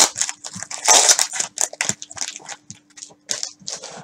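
Cellophane wrapper of a trading-card cello pack crinkling and tearing as it is worked open by hand, a rapid run of crackles loudest near the start and about a second in, tapering off toward the end.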